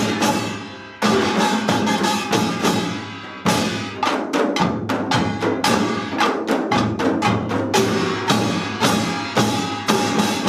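A Korean pungmul percussion ensemble plays pangut: buk barrel drums and janggu hourglass drums beat a driving rhythm over the clang of metal gongs. The playing drops off just after the start and comes back about a second in. After a short lull it breaks into quick, closely spaced strikes from about three and a half seconds in.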